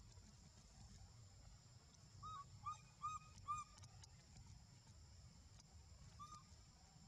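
Short, pitched animal calls: four quick arched calls, each rising and falling, about two seconds in, and a single one just after six seconds, over a faint steady high hiss.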